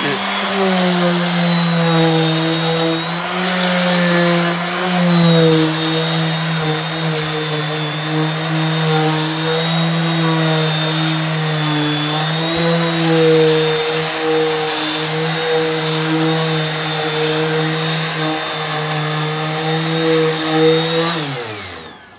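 DeWalt DWE6423 5-inch random orbit sander running at speed setting 6, sanding weathered deck boards with an 80-grit disc. A steady motor hum with a high whine, dipping slightly in pitch now and then under load, then winding down and stopping near the end.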